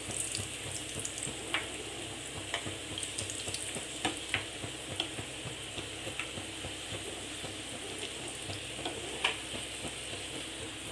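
Samosas deep-frying in hot oil in a pan: a steady sizzle with a few scattered sharp clicks and pops as they are turned over with a steel spoon.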